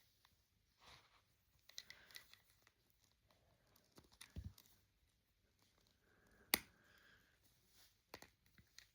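Faint rustling and small plastic clicks from handling toy figure parts and packaging, with one sharper click about six and a half seconds in.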